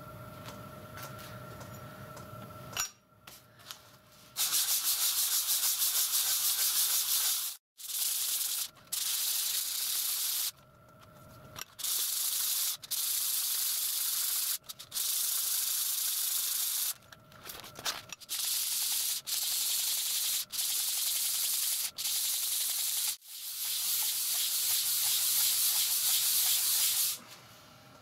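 A small metal part rubbed by hand back and forth on a sheet of abrasive paper laid flat on the bench: a rasping scrape of quick strokes. It comes in spells of a few seconds with short pauses between, starting about four seconds in.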